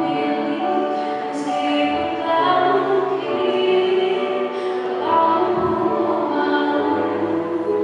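A group of young voices singing a song together in harmony, holding long notes.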